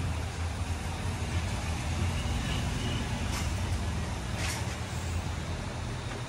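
Steady low rumble of background noise with an even hiss, and two faint brief clicks a little past the middle.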